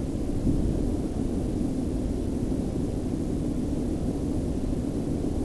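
Hurricane wind buffeting the microphone: a steady low rumble.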